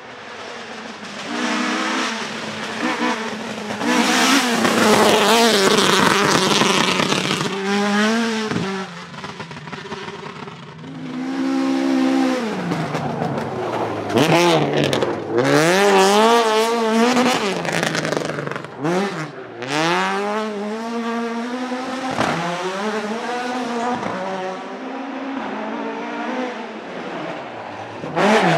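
Ford Escort Mk2 rally car's 2.5-litre Millington engine revving hard. Its pitch climbs and drops again and again with the gear changes and lifts of a stage run, and the sound rises and falls as the car comes and goes.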